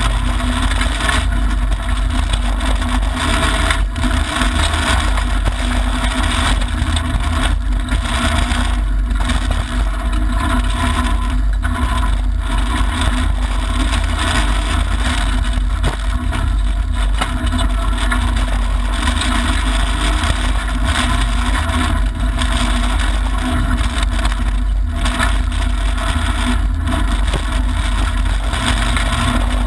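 Mitsubishi Lancer Evolution IX rally car's turbocharged four-cylinder engine running hard on a gravel stage, heard from inside the cabin. Constant loud road and gravel noise comes through the bare shell, and the sound dips briefly every few seconds.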